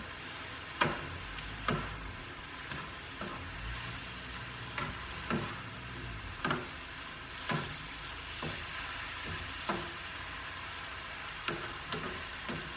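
Vegetables sizzling in a hot frying pan, with utensils scraping and knocking against the pan about once a second as they are stirred. They are cooking on high heat with the pan uncovered so their liquid boils off.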